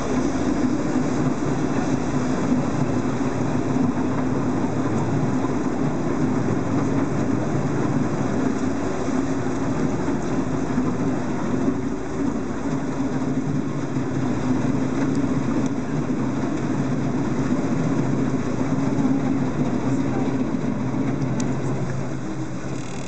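A boat's engine running steadily with a low hum, over a constant rushing noise of water and air.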